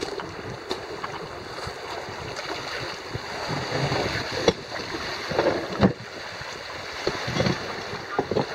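Wind buffeting the microphone over sea water washing, with two sharp knocks near the middle.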